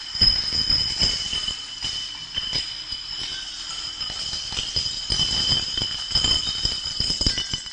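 Glass beer bottles clinking and rattling against each other, with many quick, irregular knocks. Two steady high tones run underneath.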